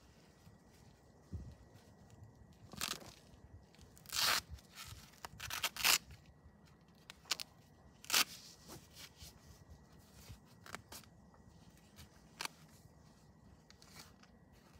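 Stretchy patterned leg wrap crackling and tearing in irregular bursts as it is pulled off the roll and wound tight around a sheep's leg. The loudest bursts come about four to six seconds in and at about eight seconds.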